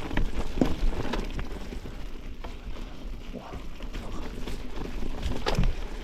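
Mountain bike riding down a trail thick with fallen leaves: tyres crunching through the leaves, with irregular knocks and rattles from the bike over bumps, and a low wind rumble on the microphone.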